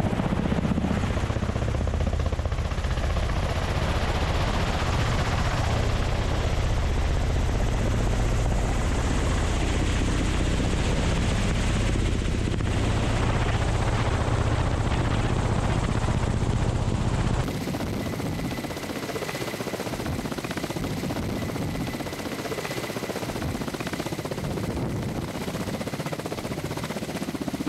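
Ka-52 attack helicopter with coaxial rotors in flight: loud, steady rotor and turbine noise with a heavy low rumble. A little over halfway through it cuts suddenly to a lighter helicopter sound with much less rumble and a faint steady whine.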